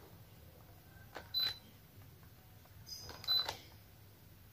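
Two presses of a Daikin air-conditioner remote's buttons, each followed by a short high beep from the indoor unit. The short beeps mean the error code shown is not the stored fault; only a long, continuous beep marks the unit's error code.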